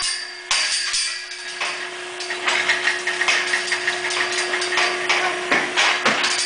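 Steel cattle squeeze chute and pipe gates clanking and rattling irregularly as a cow walks into the chute, over a steady machine hum.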